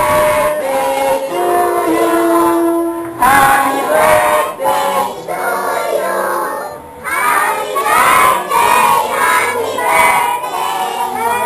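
A group of children singing together along with music.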